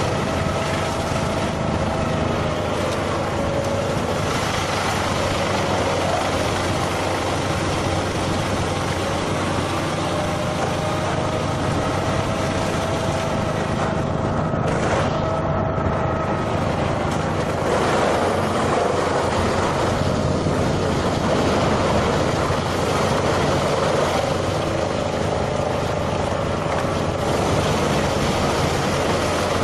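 A heavy machine's engine running steadily.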